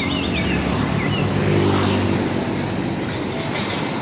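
Road traffic, dominated by a heavy car-carrier truck's engine running steadily as it drives past. Birds chirp a few times in the first second.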